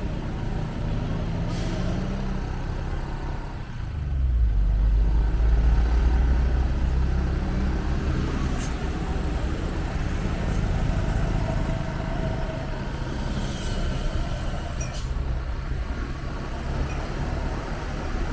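Road vehicle engine and road noise while driving, the engine pitch rising over the first couple of seconds. A heavy low rumble swells from about four seconds in and eases off a few seconds later.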